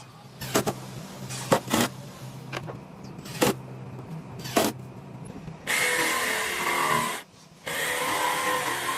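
A few sharp knocks of wood being handled over a low hum. Then a handheld power tool runs on wood in two bursts, the first about a second and a half, the second about two and a half seconds.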